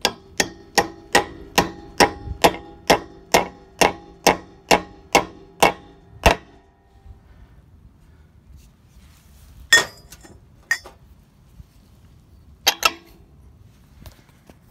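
A hammer striking a deliberately undersized socket to drive it onto a Gorilla locking lug nut so it bites, letting the nut be turned off without its key. About fifteen ringing metal strikes come at roughly two to three a second, then stop after about six seconds, with a few more knocks later.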